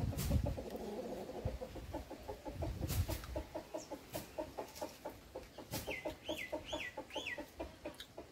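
A hen clucking in a fast, even run of short clucks, about four a second. Near the end there are three short high chirps from a bird, and a couple of low thuds come at the start and about three seconds in.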